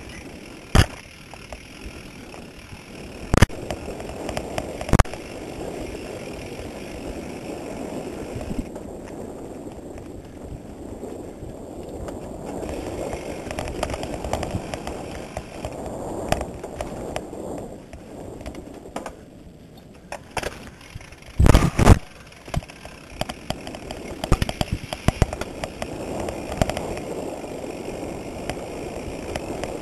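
Mountain bike rolling fast down a dirt singletrack: steady rumble of knobby tyres on dirt with the frame and chain rattling, and sharp clacks as it hits bumps, including a loud cluster of knocks about two-thirds of the way through.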